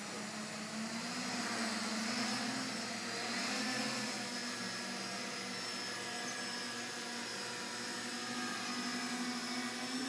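RC flying wing's motor and propeller running, a steady buzzing whine whose pitch wavers up and down with the throttle as it lifts off.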